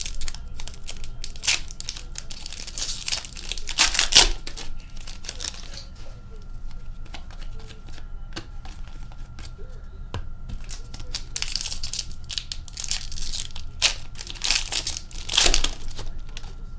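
Foil wrappers of 2020-21 Upper Deck Series 1 hockey card packs being torn open and crinkled by hand, in irregular bursts of rustling. The rustling is loudest about four seconds in and again near the end.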